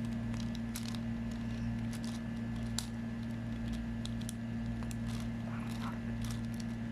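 Irregular light plastic clicks and rattles of a 4x4 Rubik's cube's layers being turned by hand, over a steady low electrical hum.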